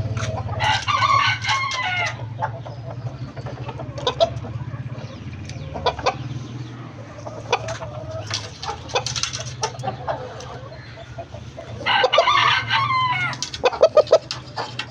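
Aseel rooster crowing twice, two long crows about ten seconds apart, with shorter calls and clucks between them and a quick run of clucks near the end. A steady low hum runs underneath.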